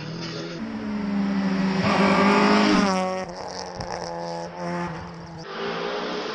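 Rally car engine running at high revs as the car races past, loudest about two seconds in, then its pitch drops steeply about three seconds in. Engine sound carries on more faintly until the shot changes near the end.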